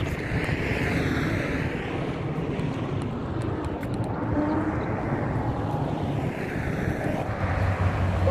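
Steady rushing noise of a passing vehicle, swelling and sweeping slowly.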